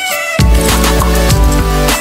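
Background music: an electronic track with deep bass notes under a high melody line that bends in pitch.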